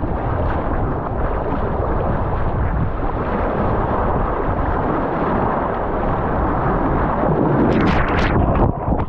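Rushing, churning surf water close against a kayak-mounted action camera, with a low rumble of water and wind on the microphone and paddle splashes. Near the end a wave washes over the camera in a burst of splashing.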